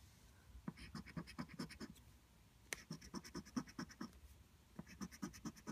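Scratch-off lottery ticket being scratched in three short runs of quick strokes, about eight a second, with brief pauses between.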